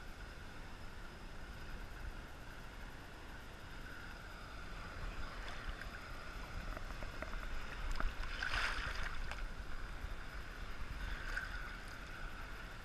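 Sea water sloshing and lapping around a camera held at the surface as small waves pass, over a low rumble of wind and water. It swells a little past the middle into a louder splash, then settles back.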